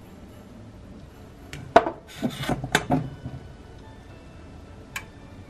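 Cubes of clear melt-and-pour soap base dropped into a stainless steel saucepan: a quick run of knocks and clinks about two seconds in, then a single knock a couple of seconds later.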